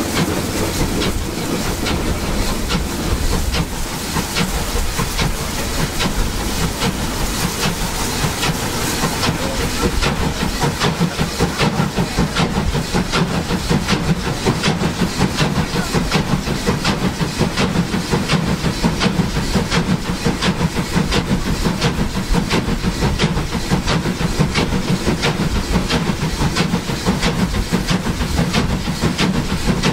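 DB class 23 steam locomotive 23 023 under way, its exhaust chuffing in a steady, even rhythm, with hissing steam and wheels running on the rails.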